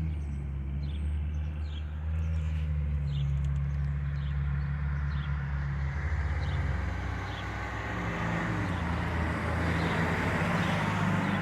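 Steady low rumble of road vehicles, with short high chirps repeating about once a second and a hiss that swells in the second half, like a vehicle drawing nearer.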